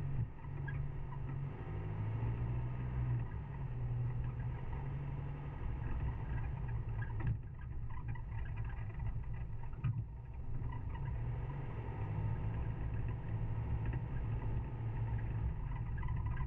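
Four-wheel drive's engine running and its tyres rolling over a dirt track, heard from a camera on the bonnet: a steady low drone with a couple of sharp knocks, about seven and ten seconds in.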